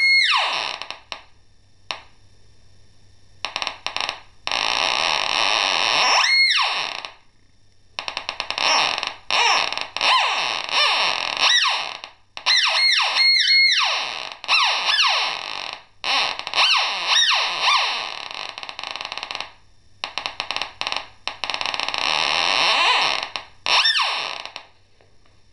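Pulse-induction metal detector's audio output: a loud, hissy electronic buzz that cuts in and out. Across it run quick pitch swoops that fall and rise again as a metal target is waved over the search coil, a detection signal.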